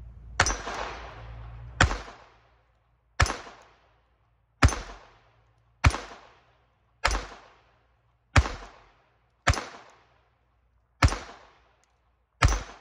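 Ten shots from a Glock 44 .22 LR pistol, fired at a slow, even pace of about one every 1.3 seconds. Each is a sharp crack with a short echo dying away behind it.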